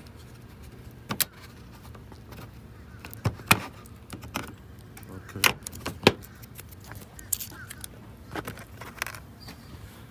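Plastic push-pin trim clips being pried out of a plastic radiator-support cover with a trim tool, making a series of sharp, irregular plastic clicks and snaps, about eight or nine in all.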